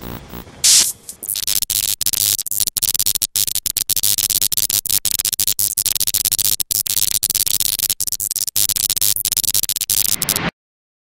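Loud static-like hiss and crackle over electronic music, stuttering with many brief dropouts. There is a sharp burst about a second in, and everything cuts off suddenly near the end.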